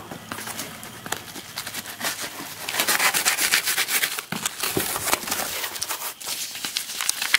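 Scraping and rustling of a taped cardboard shipping box being cut and opened, with its flaps pulled back, then paper and bubble wrap crinkling inside. The rustling is thickest about three to four seconds in.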